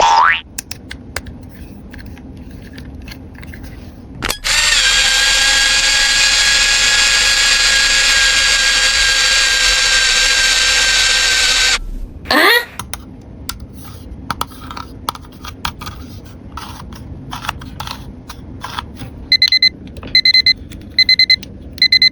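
Battery-powered toy from a doctor playset buzzing steadily for about seven seconds, then a short rising tone. Light plastic clicks follow, then four short electronic beeps near the end.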